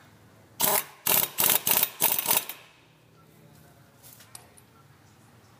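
Impact wrench hammering on the front pulley (variator) nut of a Honda Air Blade scooter's belt drive, in about five short rattling bursts over two seconds, then stopping.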